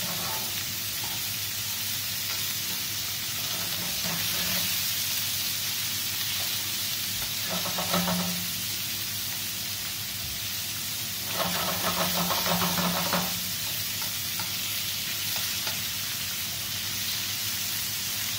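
Chicken strips sizzling steadily in hot olive oil and butter in a black steel frying pan, being sealed over high heat. Metal tongs scrape and rattle in the pan in two louder stretches, about eight seconds in and again from about eleven to thirteen seconds in.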